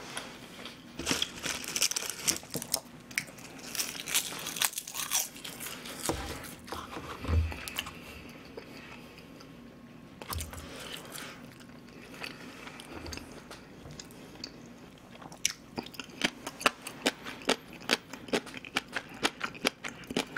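A person chewing food close to the microphone, with many short, irregular crunching clicks and mouth sounds.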